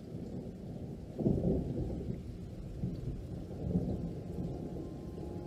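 Thunder rumbling: a deep roll that swells sharply about a second in and keeps rumbling unevenly.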